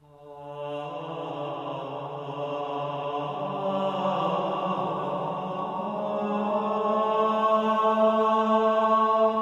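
Chant-like background music: a drone of long-held tones that fades in from silence and builds, its low note stepping up about three seconds in.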